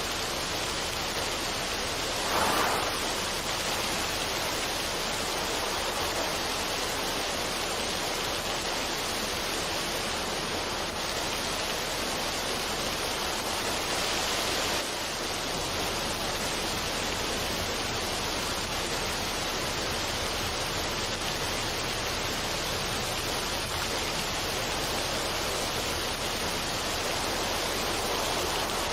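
Waterfall of a mountain stream pouring over rocks: a steady rush of water, with a brief louder splash about two and a half seconds in.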